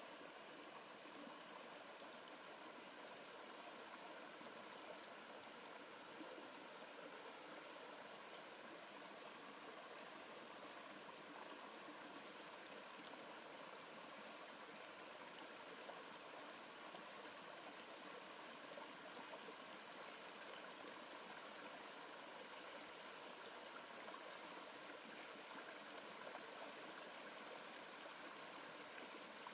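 Faint, steady rushing hiss of forest ambience, like distant running water.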